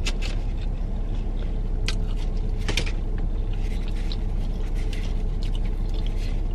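Steady low mechanical hum inside a car cabin, with a few short clicks and rustles as a burger in its paper wrapper is handled and lifted.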